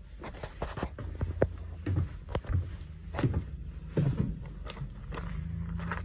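Footsteps going down a school bus's ribbed entrance steps and out onto gravel: a string of separate knocks and scuffs over a steady low hum.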